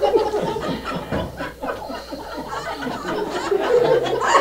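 An audience laughing and chuckling, with the cast on stage joining in.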